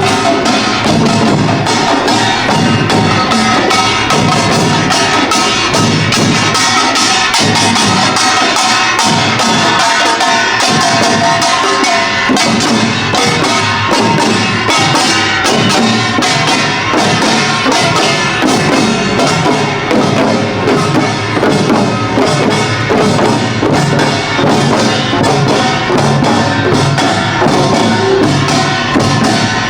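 Korean pungmul percussion ensemble playing Imsil Pilbong nongak. Kkwaenggwari small gongs clang and ring over fast, dense janggu and buk drumming.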